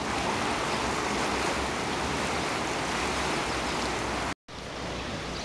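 River water rushing steadily. It cuts off abruptly about four seconds in and resumes a little quieter.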